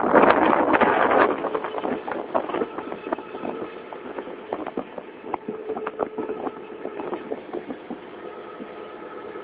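A boat's engine running steadily, with a loud rushing burst in the first second and scattered knocks and clicks through the rest.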